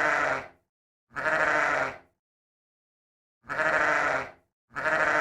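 Sheep bleating four times, each bleat about a second long, with silent gaps between them.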